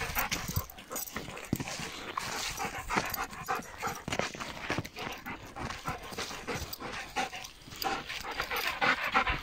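Belgian shepherd dog panting, with irregular crunching steps on dry fallen leaves and dirt.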